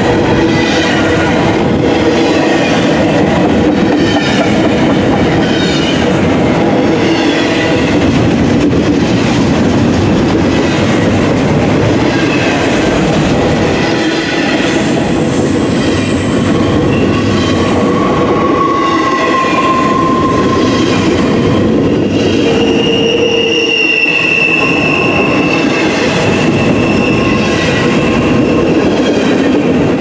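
CSX double-stack intermodal freight cars rolling past: a steady loud rumble and rattle of steel wheels on rail. Thin wheel squeals come and go in the second half.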